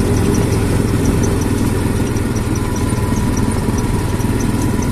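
ATV engine running steadily at low speed. The quad has over 15,000 km on its original drive belt and, in its owner's words, still runs like clockwork.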